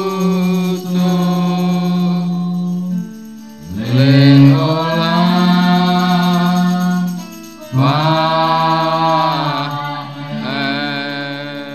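Worship chant sung into microphones: voices hold long notes in four phrases of about two to four seconds each, the middle phrases opening with an upward slide into the note.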